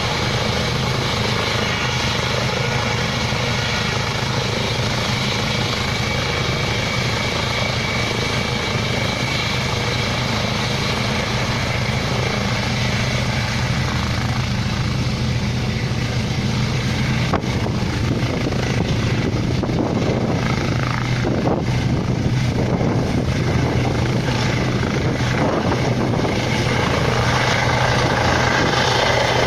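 Eurocopter EC135 T2 helicopter running close by: the steady whine of its twin turboshaft engines over the thrum of the turning rotor. From about halfway through the sound turns rougher with a fast beating, and it grows a little louder near the end.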